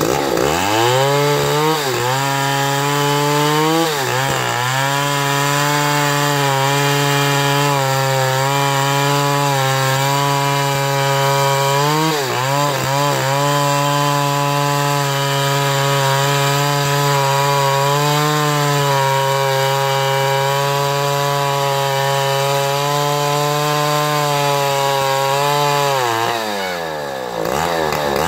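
Old Stihl 070 two-stroke chainsaw running at high revs under load, ripping lengthwise through a hardwood log to slice off lumber. The engine note dips briefly a few times in the cut, then drops and wavers near the end.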